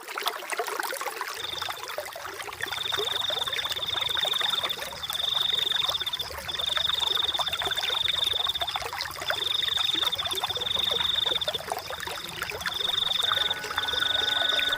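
Running stream water, with a high trilling animal call repeating over it in bursts of a second or two. Soft sustained music notes come in near the end.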